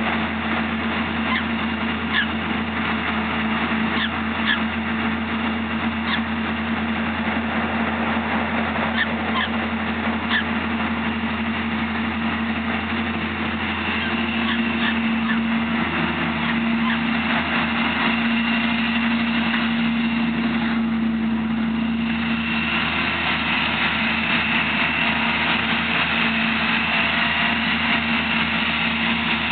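Byron sweet corn picker running steadily through the corn, a mechanical drone with a constant hum and scattered light clicks; a higher whine joins about two-thirds of the way through.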